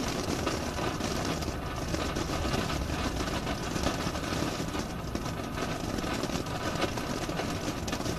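A lit ground firework burning with a steady rushing, crackling spray of sparks.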